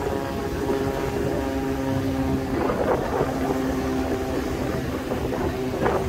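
An engine drones steadily with several even tones, settling slightly lower in pitch about two and a half seconds in.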